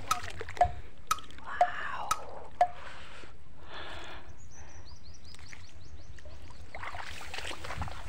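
Water drops plopping into a pond, six sharp, evenly spaced drips about twice a second, each with a short ringing note. Soft sloshing and rustling of water follow.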